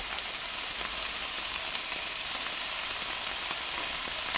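Thick steaks sizzling on the grate of an Enders eFlow Pro 2 Turbo electric grill, just laid on with the turbo zone heated toward 400 degrees: a steady, even hiss.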